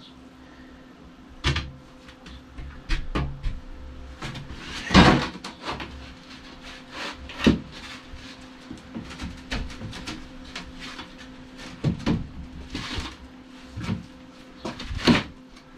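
Irregular wooden knocks, thumps and scraping of tongue-and-groove QuickDeck floor boards being handled and fitted together, with the loudest knocks about five, seven and a half and fifteen seconds in.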